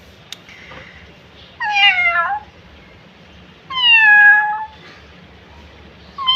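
A woman imitating a cat: two drawn-out meows, each about a second long, falling in pitch at the end, with a third starting just at the end.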